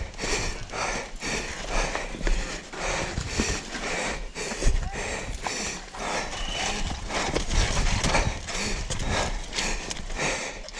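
Mountain bike and rider moving slowly over a rough, rocky trail: rattling knocks in an uneven rhythm of about two a second.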